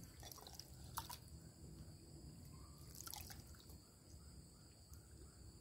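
Faint dripping and trickling of iced fruit drink ladled from a bowl into a glass, with a light click about a second in and another about three seconds in, over a steady high insect drone.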